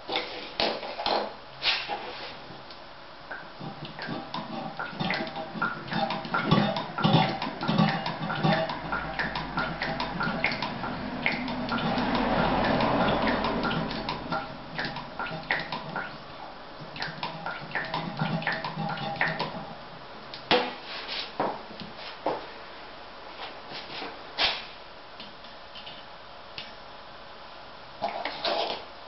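Metal fittings, hose and small tools being handled and set down on a tiled floor: a long run of clicks and knocks, with a steady rushing hiss that swells for a few seconds around the middle.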